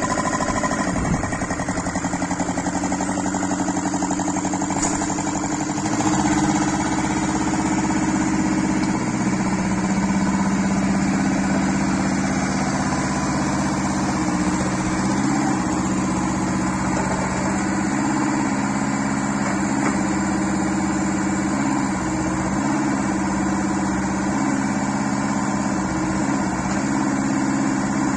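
Hanix H08 mini excavator's engine running steadily, its pitch dipping briefly now and then as the operator works the hydraulic boom, bucket and tracks. It grows a little louder about six seconds in.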